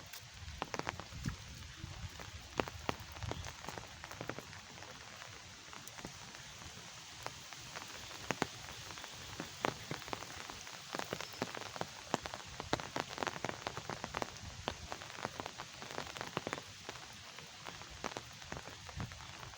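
Rain falling steadily: an even hiss with many separate drops tapping irregularly on a hard surface.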